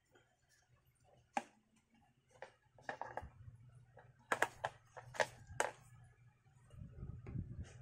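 Hard plastic pressure-washer accessories, the spray lance and foam bottle, clicking and knocking as they are handled and fitted together. There is one sharp click about a second and a half in and a quick run of clicks around the middle, then low rubbing handling noise near the end.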